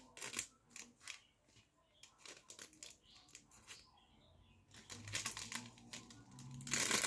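A small packet of slime decorations crinkling and ticking in a string of light clicks as its last pieces are shaken out. The rustling grows denser and louder near the end.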